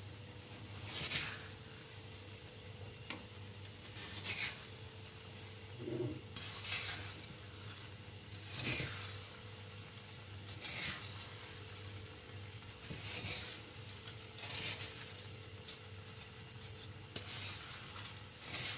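A wooden spatula stirring peanuts in a frying pan: a dry scraping and rattling of the nuts, one stroke about every two seconds. The sugar is crusting onto the peanuts as they are turned so it coats them and doesn't stick.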